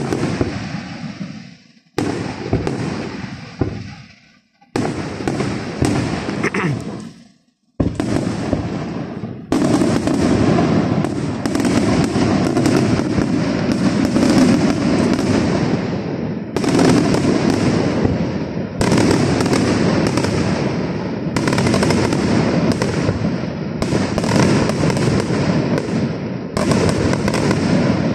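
Aerial firework shells bursting. For the first several seconds they come as single sharp bangs a second or two apart, each fading away. From about nine seconds in they run together into a continuous barrage of explosions.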